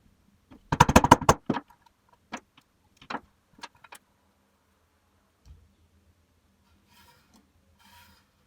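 A quick clatter of hard clicks and knocks about a second in, followed by a few single clicks and a faint rustle near the end, as small hard objects are handled and set down.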